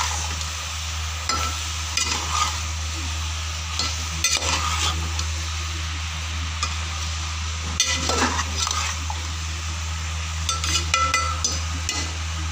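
A metal spoon stirring and scraping mixed vegetables in a metal cooking pot over a steady sizzle of frying. The scrapes come every couple of seconds, with a quick cluster near the end. A steady low hum runs underneath.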